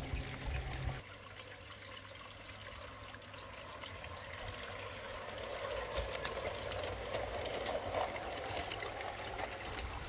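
G scale model train running on garden track: a steady rolling hiss with many light clicks, swelling as it comes close about six to eight seconds in. The sound changes abruptly about a second in.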